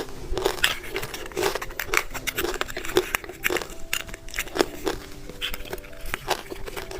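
Crunchy candy being bitten and chewed: a steady run of sharp crunches.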